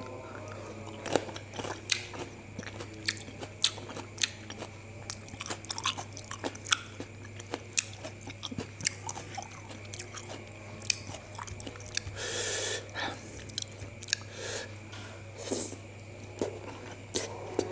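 Close-mic chewing and biting of black grapes dipped in peanut sauce: many short wet clicks and crunches. There is a longer breathy noise about twelve seconds in.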